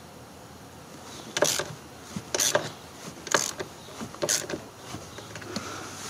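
Hand ratchet clicking in short bursts about once a second, four times, as it is worked back and forth on a tight seat-belt retractor anchor bolt.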